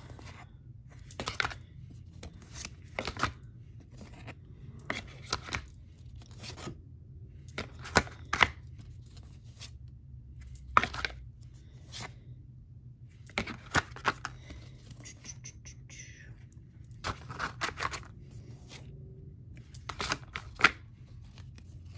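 Stiff glossy oracle cards being handled one by one: irregular short clicks, snaps and slides of card against card and fingers.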